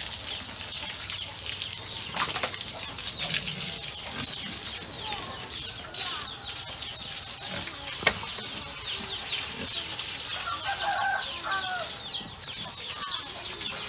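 Water spraying from a hose onto pigs in a pen, a steady hiss, with many short high chirps throughout and a brief run of clucking calls about ten seconds in. A single sharp knock about eight seconds in.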